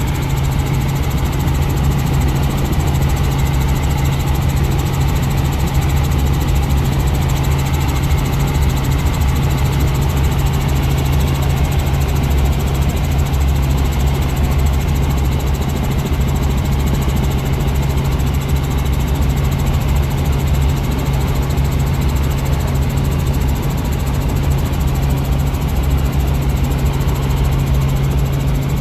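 Helicopter in flight heard from inside the cabin: the engine and rotor make a steady, loud low drone that does not change.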